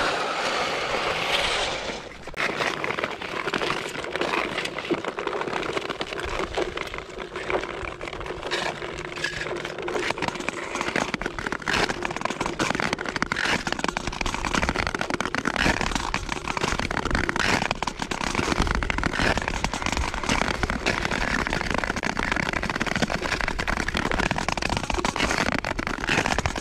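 Skate blades gliding and scraping over rough, frost-covered natural lake ice, giving a dense run of fast crackles and scrapes over a steady hiss.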